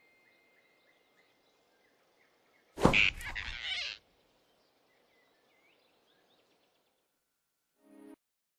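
Animated-film sound effect of a large rabbit snatching a flying squirrel: a sudden loud grab about three seconds in, lasting about a second, over faint forest birdsong. A brief lower sound comes near the end.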